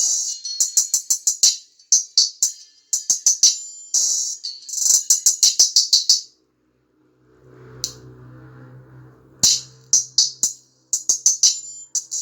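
Music played through a small tweeter: only the top end comes through, as fast tinny tambourine- or hi-hat-like ticks, with no bass or vocals. It drops out about six seconds in, leaving a faint low hum, and comes back about three seconds later.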